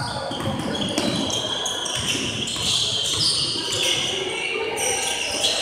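Sounds of a basketball game on a hardwood gym court: a ball dribbling and players' feet on the floor, echoing in the hall.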